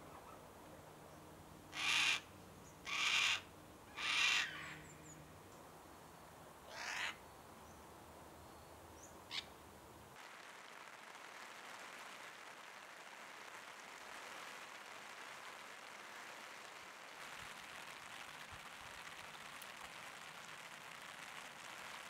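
Yellow-tailed Black-Cockatoo giving four loud, drawn-out calls in the first seven seconds. About ten seconds in, it gives way to a steady hiss of rain.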